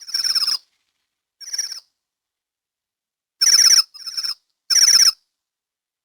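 A wild bird calling: five short trilled calls of about half a second each, some louder and some softer, with gaps of silence between them.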